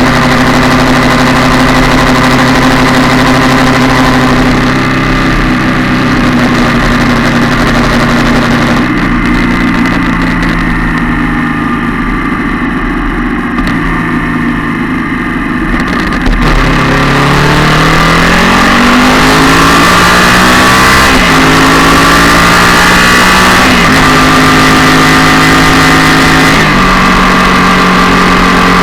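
Yamaha MT-07's parallel-twin engine heard close up while riding. It runs steadily, then the pitch falls and the sound thins for several seconds as the revs drop. About halfway through it pulls again, the pitch rising and then dropping back three times as it shifts up through the gears, before settling at a steady speed.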